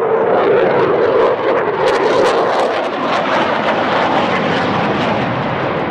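Eurofighter Typhoon's twin EJ200 turbofan jet engines running at high power in afterburner. A loud rushing noise swells at the start, and a rough crackle comes in from about two seconds in.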